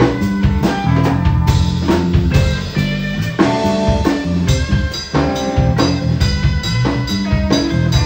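Hollow-body archtop electric guitar playing a quick run of single notes through an amplifier, over a live band with a drum kit.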